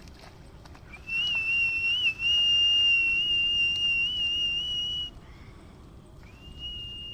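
A high whistle held steady for about four seconds with a slight waver, then a second long whistle starting near the end.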